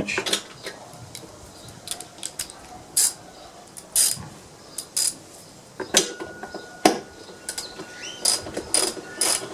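Scattered metallic clicks and knocks of a socket wrench being fitted to and worked on the small 1/4-inch bolts of a lawn mower's front-drive cover.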